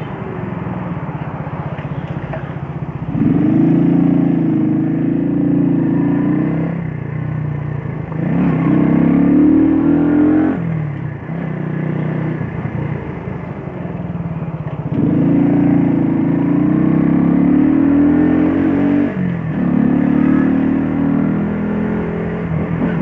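Shineray Jet 50cc scooter engine running under the rider. The throttle opens about four times, each time rising in pitch and getting louder, then easing back to a lower, quieter note in between.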